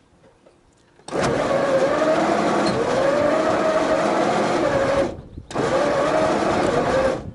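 Rolls-Royce Merlin 29 V12 of a Hawker Hurricane Mk XII starting, coming in suddenly about a second in and then running loud and steady, heard from the cockpit. The sound cuts out briefly about five seconds in. The pilot judges the start a little lean, with only half a shot of prime.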